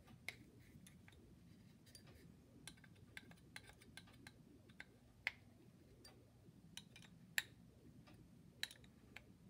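Faint, irregular small clicks and ticks of a hex screwdriver tightening tiny screws into an aluminium hinge assembly, over quiet room tone; two of the clicks, about five and seven seconds in, stand out.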